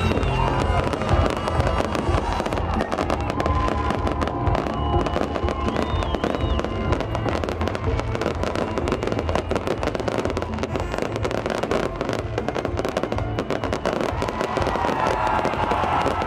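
Fireworks display going off without a break, dense crackling and popping with bangs, with music playing underneath.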